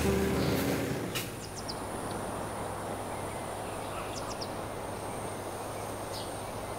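Background music ending about a second in, then steady ambient noise: an even hiss over a low hum, with a few brief high chirps.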